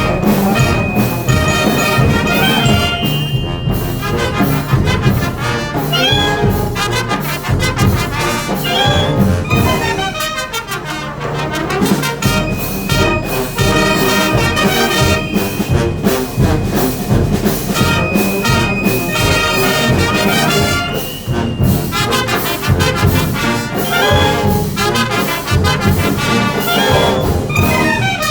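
Procession brass band playing a cumbia: trumpets and trombones carry the melody over a steady percussion beat.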